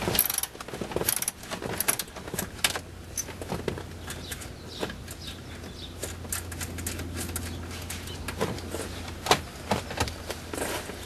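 Irregular metallic clicks and clinks of a 10 mm wrench working the screws that hold a DVD player unit in place, over a low steady hum.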